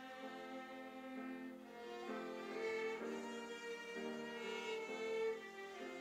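Violin playing a slow melody in held notes, moving to a new note about once a second, with the line rising and growing louder through the middle.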